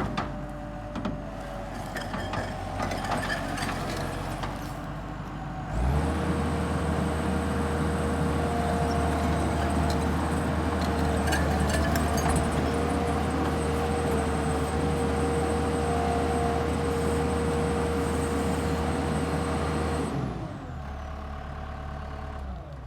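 Gehl CTL70 tracked skid steer's diesel engine running at low speed with some clanking, then throttled up about six seconds in and held high and steady, dropping back to a lower speed about twenty seconds in.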